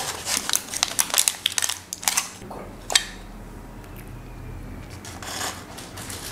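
Takeaway food wrappers and packaging being handled and set out, crinkling and rustling with a quick run of sharp clicks and taps over the first three seconds, then one softer rustle about five seconds in.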